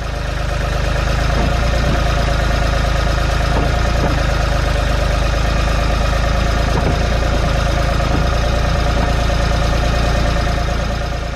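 Ford tractor engine running at a steady speed, a constant deep hum with no change in pitch.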